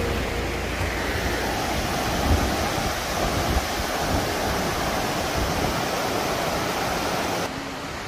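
Rushing water of a rocky mountain river cascading over boulders, a steady rush, with wind buffeting the microphone in the first few seconds. The sound drops abruptly to a quieter rush near the end.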